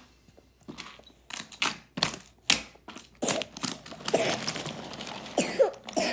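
Irregular clicks and knocks of small hard objects being handled, with a short rising-and-falling squeak near the end.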